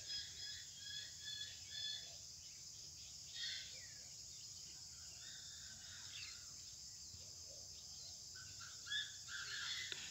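Faint outdoor ambience: scattered short bird calls, a few near the start, one about three and a half seconds in and a cluster near the end, over a steady high insect buzz.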